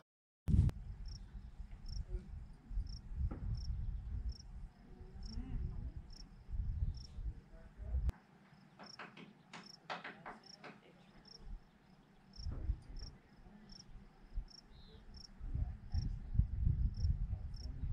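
A cricket chirping steadily, about one and a half short chirps a second, over an uneven low rumble.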